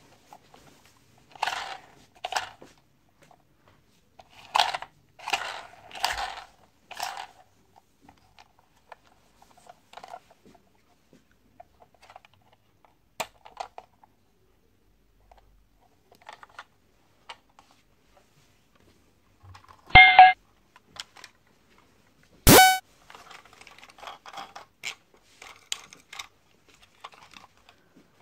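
Small plastic toy cars handled and turned over on a table: clattering and rattling plastic with scattered clicks. About two-thirds of the way through come two short, loud electronic beeps a couple of seconds apart.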